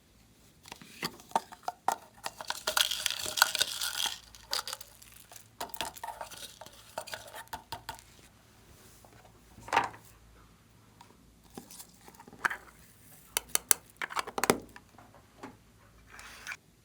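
Close handling noises: plastic crinkling and tearing with clicks and taps. They are densest in a crackling stretch about two to four seconds in, then come as scattered clicks and a few sharper taps.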